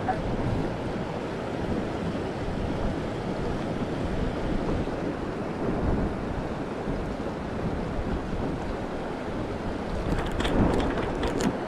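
Mountain river water rushing steadily over rocks, with wind buffeting the microphone. A few short, sharp sounds cut through near the end.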